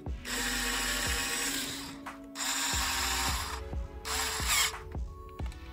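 Small cordless electric screwdriver running in three bursts, driving screws into plastic 3D-printed parts: a run of about two seconds, then two shorter ones.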